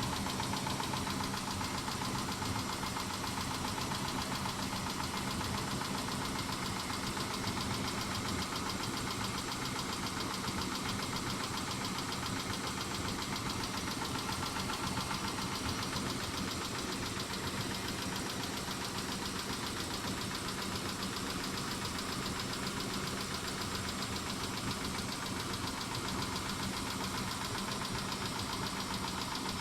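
Mitsubishi 6G72 V6 engine running steadily with a rapid ticking from the valvetrain, which the owner takes for clattering hydraulic lash adjusters while wondering whether it is instead a sign of a worn engine.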